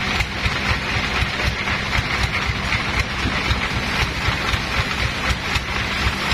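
Sawmill machinery running steadily, with a repeating low throb under an even hiss.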